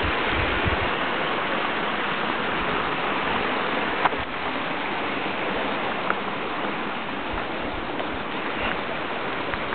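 Steady rush of a mountain river's flowing water, an even noise without pitch.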